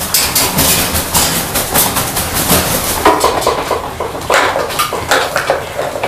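A rapid, irregular clatter of small hard knocks and taps.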